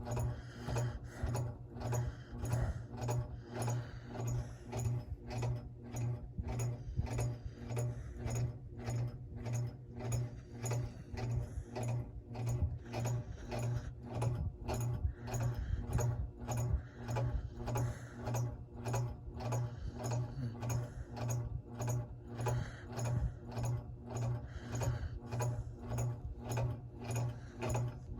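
Snoring that runs as a steady, regular pulsing of about two beats a second, with a low rattle in each beat.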